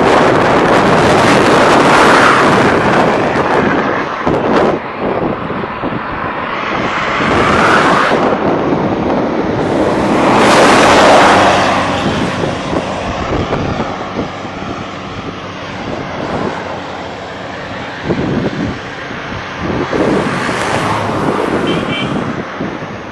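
Wind buffeting the microphone over road noise from a moving vehicle, a loud rushing sound that rises and falls in several swells, the loudest about eleven seconds in.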